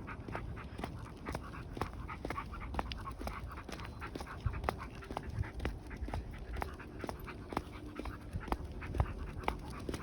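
Shiba Inu dog panting, with irregular sharp clicks a few times a second.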